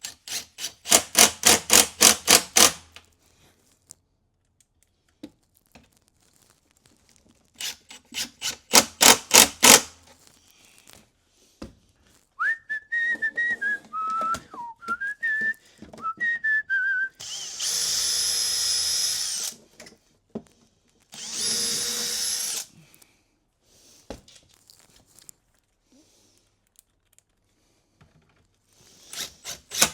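Cordless impact driver hammering screws home in three bursts of rapid, even clicking, near the start, a third of the way in and at the very end. Between them a drill motor runs steadily twice for about two seconds each, and before that comes a brief wavering high whistle.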